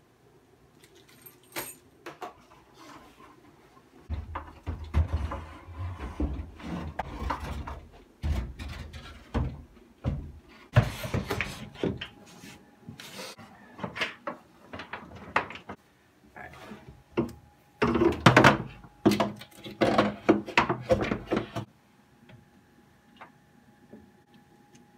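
Wooden sauna panels being handled and slid into their slots: repeated knocks, thuds and scraping of wood on wood in bursts, stopping a few seconds before the end.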